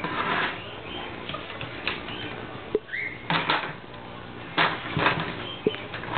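Ferrets scampering and playing on a hard floor: claws scrabbling, with irregular knocks and clatters as they bump a plastic bucket and kneeling pad.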